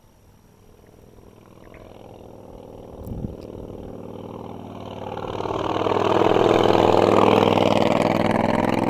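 V-twin cruiser motorcycle approaching and passing close by, its engine growing steadily louder and loudest near the end.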